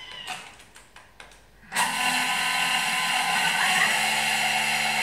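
A few light clicks, then a Thermomix TM5's motor starts suddenly about two seconds in and runs loud and steady at high speed, its blade milling raw sugar into caster sugar.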